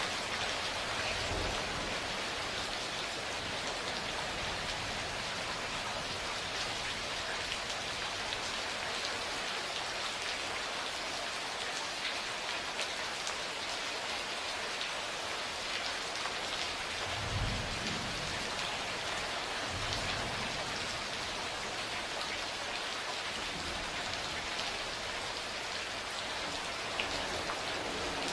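Steady, heavy rain falling on a surface, with scattered individual drop ticks. Low rumbles of distant thunder come about two-thirds of the way through, twice in quick succession.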